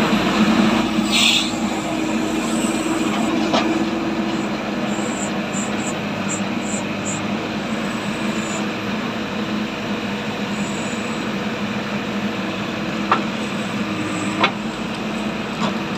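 Diesel engines of a JCB backhoe loader and tractors running steadily while digging and loading soil, with a few sharp knocks.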